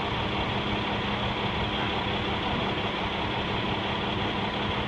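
An engine idling steadily: a constant, even hum that holds one pitch throughout.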